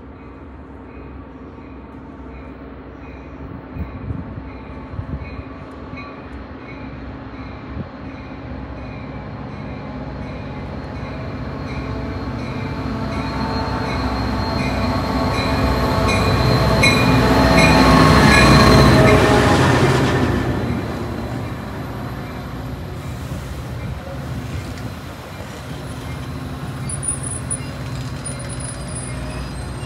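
Metra commuter train running past on the rails, growing steadily louder to a peak a little past halfway, then dropping back as the cars keep rolling by.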